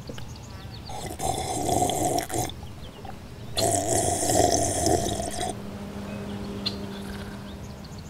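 A man snoring: two long snores, each lasting a second and a half to two seconds, about a second apart.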